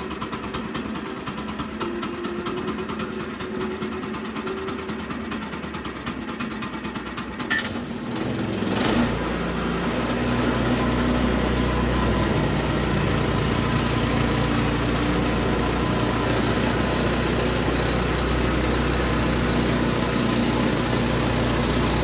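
The gas engine of a Woodland Mills HM122 portable bandsaw mill runs steadily at idle. After a click about seven and a half seconds in, it is throttled up and runs louder and deeper, holding steady at speed.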